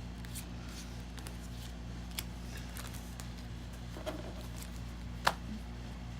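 Pokemon trading cards being handled and flipped: a few faint clicks and taps, with a sharper click about five seconds in, over a steady low hum.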